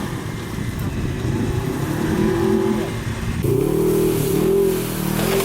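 Polaris RZR XP 1000 buggy engine running rough and uneven, then revving up and down several times from a little past halfway.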